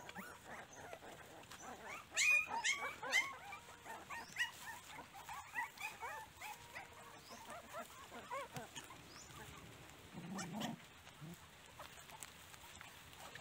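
A litter of young puppies whimpering and squeaking as they crowd together to eat: many short, high squeals, busiest about two to three seconds in and thinning out after. A short low rumble comes about ten seconds in.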